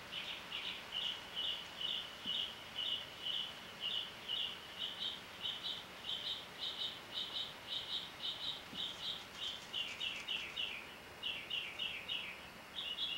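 Steady, rhythmic high-pitched chirping, about two to three short chirps a second, that dips lower in pitch for a couple of seconds near the end.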